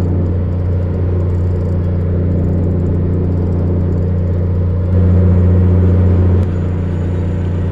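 Steady low drone of a fishing boat's engine running, briefly louder for about a second and a half a little past midway.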